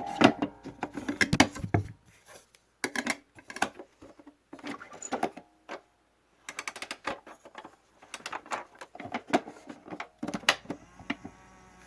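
Hard plastic parts of a 1970s Fisher-Price #995 toy record player being handled: irregular bursts of clicks and clatter with short pauses, and no tune playing.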